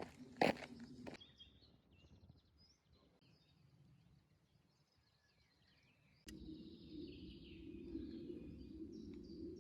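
Two or three footsteps in the first second, then small birds chirping through a quiet stretch. About six seconds in, a steady low hum starts abruptly beneath the continuing birdsong.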